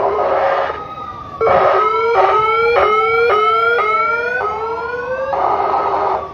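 Emergency vehicle sirens sounding: a slow falling wail overlaps a fast yelp of rising sweeps, about two a second, with buzzy horn-tone blasts at the start and near the end.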